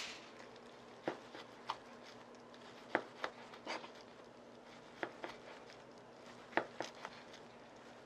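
Kitchen knife slicing through a kimbap roll and tapping down onto a plastic cutting board: about ten short, light taps, spaced irregularly and some in quick pairs, one for each slice.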